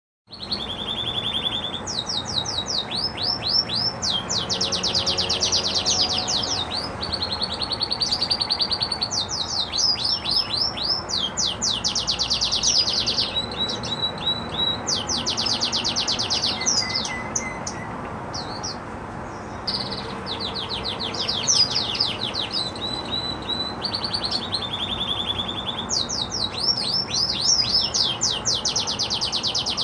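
Red agate canary singing a long, continuous song of fast trills and rolls: phrases of rapidly repeated high notes, some held as even buzzy rolls, some as quick falling chirps, with a brief lull past the middle.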